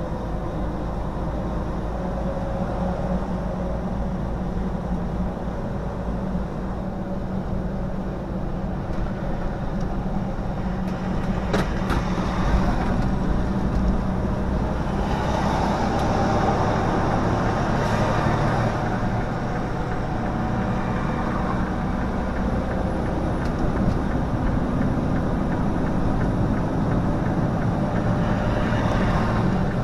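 Semi-truck engine and tyre noise heard inside the cab while driving on the highway: a steady drone that swells for a few seconds about halfway through.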